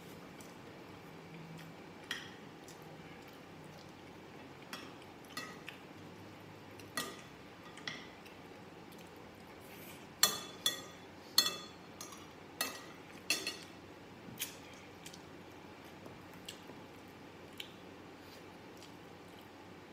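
A metal spoon clinking against glass and ceramic dishes while eating. Scattered single clinks, with a quicker run of louder ones about halfway through.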